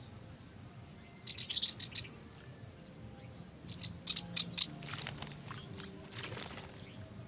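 White-throated kingfisher calling in rapid runs of sharp, chattering notes, about a second in and louder about four seconds in, then a flurry of wing flaps and water splashing as it dives at the pond surface.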